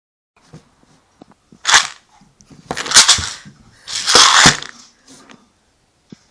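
Something shaken to rattle in three short bursts, the second and third longer than the first.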